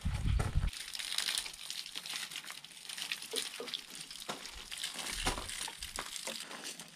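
Wet, soapy scrubbing on a motorcycle's handlebar controls, then water poured from a watering can splashing and trickling over the foam-covered bike, a crackly hiss with many small clicks.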